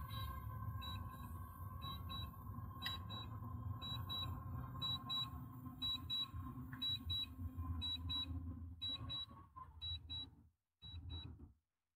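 DJI FPV drone's critical low-battery warning: high double beeps repeating about once a second over the steady hum of its motors as it comes down to land. The motor hum fades and cuts out about ten seconds in as the drone touches down.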